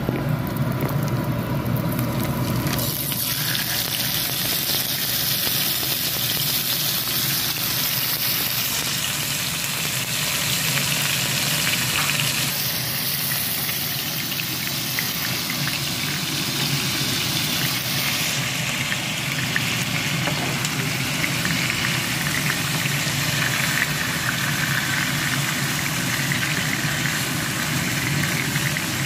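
Marinated steak frying in hot oil in a nonstick frying pan, a steady sizzle that sets in about three seconds in.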